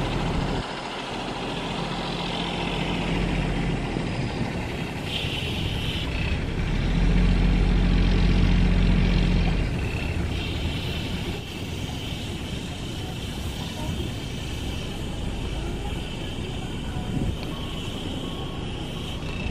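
Diesel bus engine running as the bus moves slowly, growing louder for a couple of seconds midway before easing back to a steady rumble.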